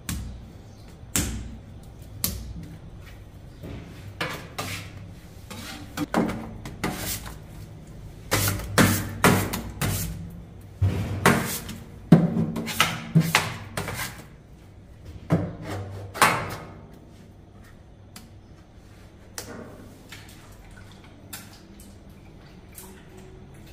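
Irregular sharp knocks, slaps and clatter of bakers working at a traditional sangak stone oven, coming in quick clusters through the middle and thinning out near the end, over a low steady hum.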